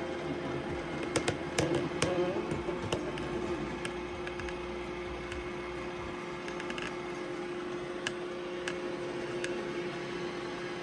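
Roomba i7+ robot vacuum running on carpet, a steady motor hum with a few sharp clicks and knocks between about one and three seconds in.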